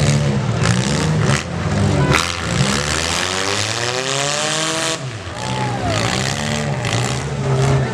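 Demolition derby car engines revving up and down, the pitch climbing and falling over a few seconds, with several sharp bangs among them.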